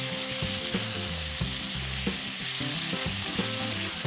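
Potatoes, carrots, shiitake mushrooms and pork ribs sizzling steadily in a hot oiled wok as they are stir-fried with a wooden spatula.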